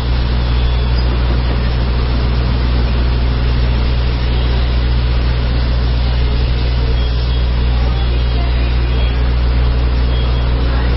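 Steady rumble and rush of a moving steam-hauled train, heard from an open carriage window, loud and unbroken throughout.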